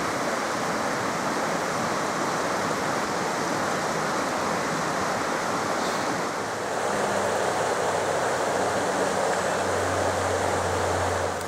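Steady rushing of a forest stream or river flowing over rocks.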